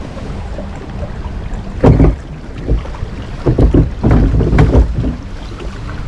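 Mack Rides log flume boat riding along its water trough: water sloshing around the boat under a low rumble of wind on the microphone. Loud irregular bursts come about two seconds in and again between three and a half and five seconds.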